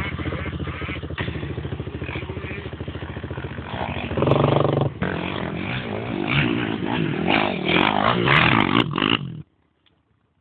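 Quad (ATV) engine running while ridden, with a louder rev about four seconds in and rattling knocks over the next few seconds. The sound cuts off abruptly about nine seconds in.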